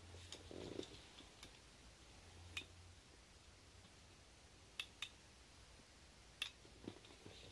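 A handful of short, sharp, irregular clicks from a handheld laser tachometer being handled and its buttons pressed, with a brief soft rustle near the start and near silence between.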